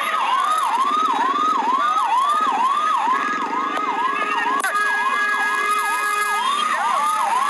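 Vehicle siren wailing in a fast repeating pattern of about two to three rising whoops a second, each dropping sharply before the next. A second steady tone joins through the middle and stops about two-thirds of the way in.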